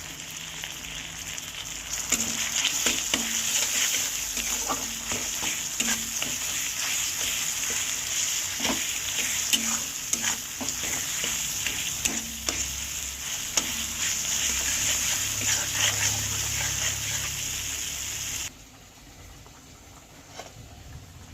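Vegetables sizzling in hot oil in a pan, stirred with a spatula that clicks and scrapes against the pan. The sizzling cuts off suddenly near the end, leaving a much quieter stretch with a few faint clicks.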